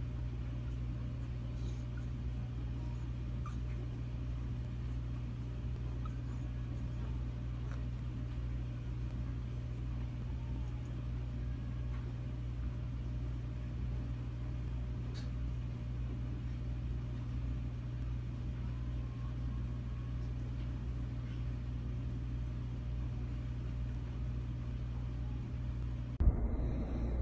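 A steady low hum, with a few faint, brief squeaks from sleeping puppies. A sudden click comes near the end, and the background sound changes after it.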